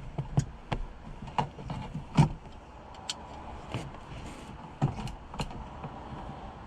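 Hands squeezing and working a plastic fuel hose quick-connector on a car's fuel pump assembly: scattered light clicks and knocks, the loudest about two seconds in.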